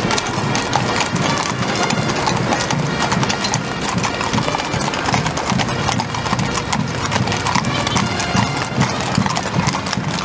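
Many horses' hooves clip-clopping on asphalt as a mounted cavalry column passes, in a dense, continuous clatter. A military fanfare band plays a march behind it.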